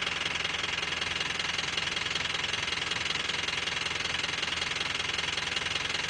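Steady low machine hum under a constant high-pitched hiss, with no distinct events.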